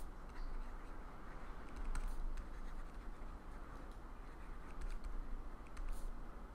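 Pen writing by hand: light scratching strokes with a few small taps, over a low steady hum.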